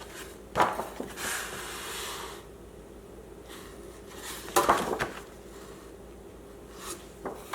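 Meal-kit packages being handled and set down: a knock about half a second in, a stretch of rustling packaging, then another clatter of knocks near the middle.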